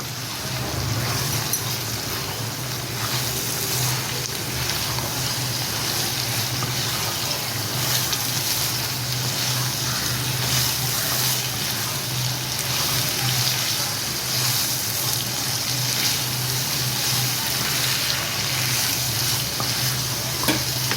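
Goat-head meat sizzling steadily in oil in a kadai as it is stirred and fried dry, its cooking liquid already reduced, with a steady low hum underneath.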